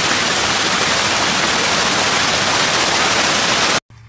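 Dense, continuous splashing of a crowded mass of farmed fish thrashing at the water's surface, a steady wall of noise that cuts off suddenly near the end.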